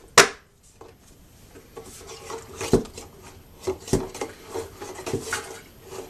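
Plastic lid being pressed down onto a 5-gallon plastic bucket: a loud snap right at the start, then a few scattered plastic knocks and clacks, over a faint steady hum.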